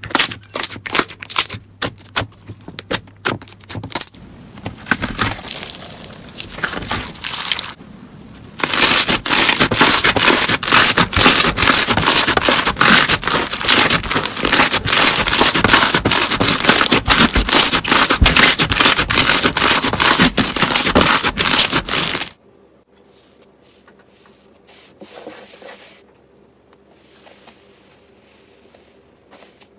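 Slime being worked by hand, giving dense crackling and popping clicks: scattered at first, then a continuous loud crackle from about nine seconds in that cuts off suddenly at about 22 seconds, after which only faint, soft sounds remain.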